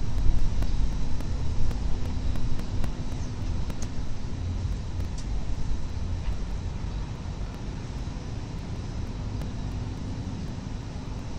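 Low, steady city rumble picked up by an outdoor nest-camera microphone on a high building, slowly easing in level.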